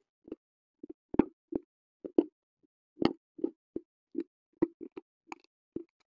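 Hard, brittle black slate-type pieces being bitten and chewed right at a clip-on microphone. It is a string of sharp, irregular crunches, about two or three a second.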